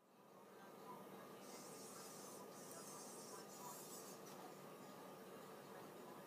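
Near silence: faint steady room hiss, with a soft scratchy rubbing between about one and three seconds in as orthodontic pliers grip and work the stainless-steel clasp wire against the stone model.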